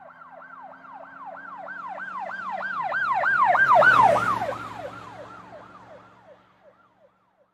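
Emergency-vehicle siren wailing in quick falling sweeps, about three a second, as it passes: it swells to its loudest about four seconds in, where a lower hum drops in pitch, then fades away.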